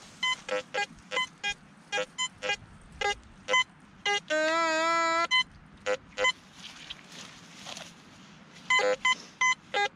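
Metal detector sounding runs of short, quick beeps as its coil passes over targets, with one longer, lower steady tone about four seconds in that lasts about a second. After a few seconds with only faint background sound, a fresh run of quick beeps comes near the end. These are signals that may come from just iron or from several different objects.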